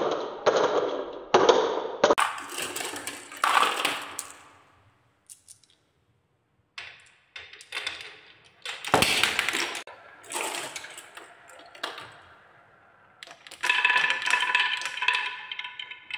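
Balls rolling and clacking down wooden marble-run tracks, in several bursts of rattling knocks with a short silent pause in between. Near the end a longer run rolls along a wavy wooden track with a steady ringing hum.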